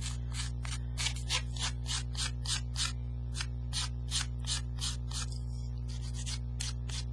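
Handheld sanding tool rasping along the edge of a paper-covered chipboard divider in quick back-and-forth strokes, about three or four a second, thinning out after about five seconds. A steady low electrical hum runs underneath.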